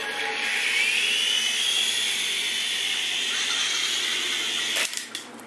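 Toy remote-control helicopter's small electric motor and rotors spinning up: a high whine that rises in pitch over the first second and a half, then holds steady. It cuts off about five seconds in, with a couple of clicks.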